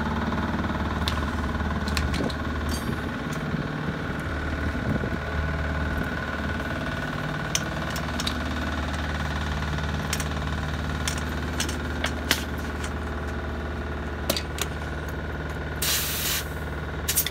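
An engine running steadily at idle, with scattered light metal clinks from tools on the wheel's lug nuts and a brief hiss of air near the end.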